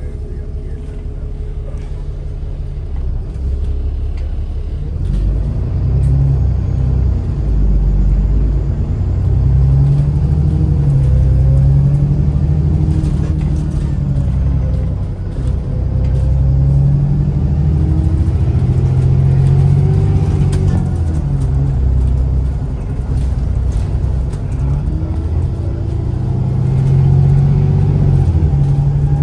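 ADL Enviro 400 MMC double-decker bus's diesel engine and ZF automatic gearbox accelerating. The engine note rises and then falls back at each gear change, several times over, under a heavy low rumble.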